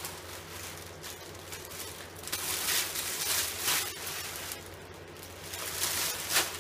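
Clear plastic wrapping rustling and crinkling as it is pulled off a ring light, in two spells: a longer one starting about two seconds in and a shorter one near the end.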